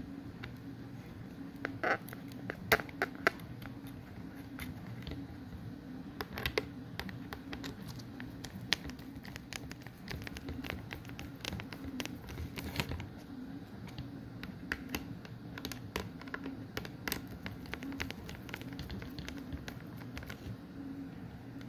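Screws being driven into a hard drive mounting bracket: irregular small clicks and scrapes of metal and plastic, with a few sharper clicks about two to three seconds in, over a steady low hum.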